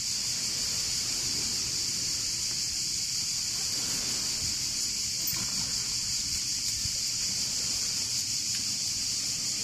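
Steady chorus of cicadas in the pine trees, a high, even buzz that does not let up.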